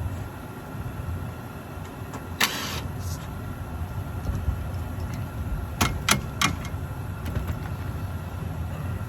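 Gas-electric rooftop package unit running with a steady low hum, with a short rattle about two and a half seconds in and three sharp metallic clicks around six seconds in.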